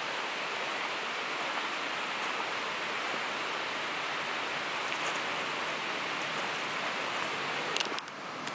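Steady rush of a shallow river running over rocks. A few sharp clicks come just before the end, where the sound drops suddenly in level.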